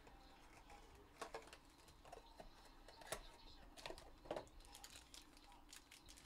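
Faint handling of a cardboard trading-card box: a few soft clicks and taps as its flap is opened and a pack is pulled out.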